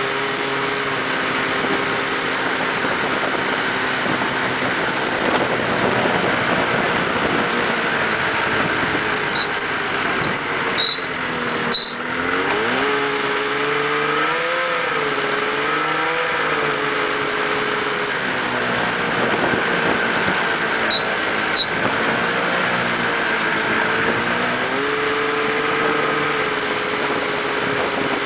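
A 600cc snowmobile engine powering a mini buggy runs steadily under way. Its revs dip and climb again around the middle and once more near the end, with a few sharp knocks in the middle.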